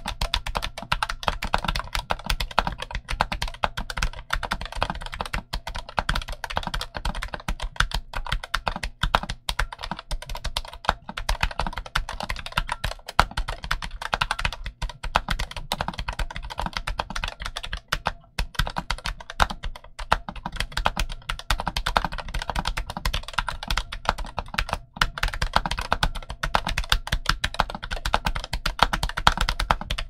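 Fast two-handed typing on an Ajazz AKL680 low-profile mechanical keyboard with Huano Brown tactile switches and double-shot ABS low-profile keycaps: a dense, unbroken stream of key clacks with only a few short pauses.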